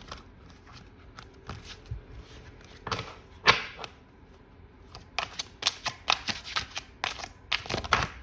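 A deck of tarot cards being shuffled by hand: a few scattered card snaps, then a fast run of rapid clicks and slaps in the last three seconds.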